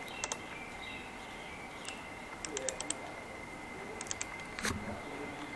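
Socket ratchet clicking in short runs of quick, evenly spaced clicks as a bolt is turned, with one louder metallic knock about four and a half seconds in.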